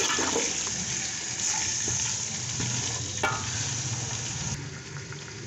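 Raw chicken pieces sizzling in hot oil with fried onions in a metal pot, stirred with a spatula that scrapes and knocks against the pot. There is a sharp knock about three seconds in, and the sizzle quietens near the end.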